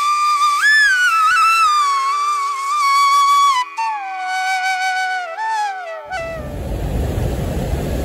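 A slow solo flute melody with gliding, bending notes plays for about six seconds, then stops abruptly. A steady rushing roar of water spilling over a check-dam weir takes over.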